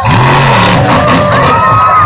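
Monster truck engine revving hard, very loud, cutting in suddenly at the start, its pitch rising and falling under a dense roar.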